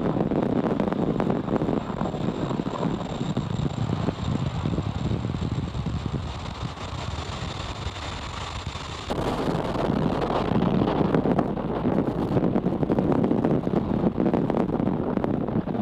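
Steady rushing air and rumble from the Falcon 9 first-stage booster's onboard camera as it falls back through the atmosphere during its descent. The rush eases for a few seconds, then comes back suddenly louder and brighter about nine seconds in.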